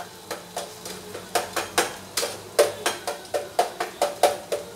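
A steel spoon clinking and scraping against a metal pot while stirring frying onions, about four clinks a second, each with a short ring.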